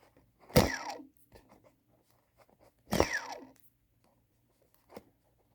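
Brushless quadcopter motor on an ER349 race quad spun twice, each spin a short whine falling in pitch as the motor coasts down. The sound is crunchy and rough: the motor has a bad bearing.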